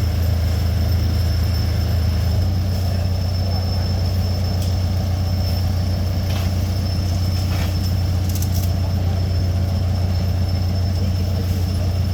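Diesel engine of heavy road-construction machinery running steadily: a constant low drone with a thin high whine above it.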